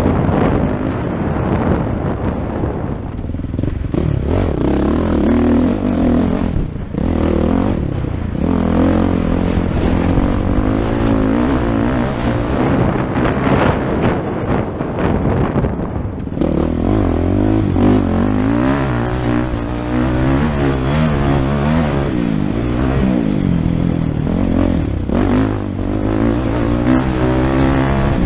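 Motocross bike's engine being ridden hard on a dirt track, its pitch climbing and falling again and again through the gears, with the throttle shut briefly a few times, about 7, 8 and 16 seconds in.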